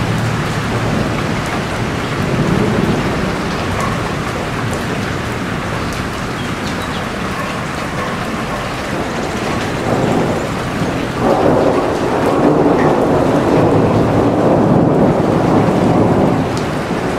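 Heavy rain pouring steadily, becoming noticeably louder and denser about eleven seconds in before easing back near the end.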